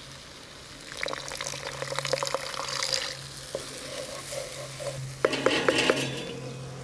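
Vegetable stock poured onto risotto rice in a hot pan over charcoal, sizzling, then a wooden spoon stirring and scraping the rice against the pan from about a second in, with a quick run of clicks near the end. It is the stage of risotto making where the first portion of stock goes onto the rice after the wine has cooked off.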